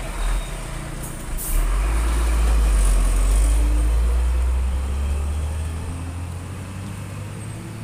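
Container truck's diesel engine pulling away and driving off, its low drone fading as it goes. Two short sharp sounds come about a second in.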